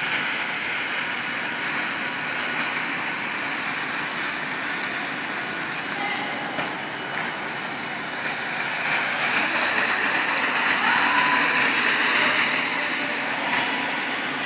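Kärcher BD 530 battery walk-behind floor scrubber-drier running steadily, its motors and scrub brush making a continuous whirring wash of noise that swells louder from about eight to twelve seconds in.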